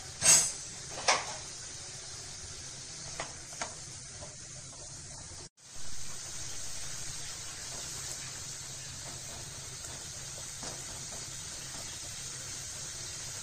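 Water simmering around chopped raw mango pieces in a nonstick pan, a steady soft hiss. Two sharp clinks of a utensil on the pan come in the first second or so, with a couple of lighter ones a little later; the sound drops out briefly about halfway.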